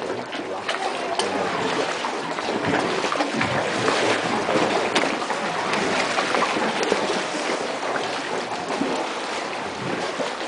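Water sloshing and splashing around kayaks in a cave, a steady wash of noise with scattered sharper splashes and knocks.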